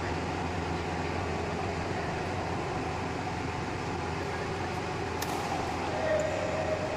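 Steady hum and rush of the hall's air conditioning or fans during a badminton rally, with a single sharp crack about five seconds in from a racket striking the shuttlecock.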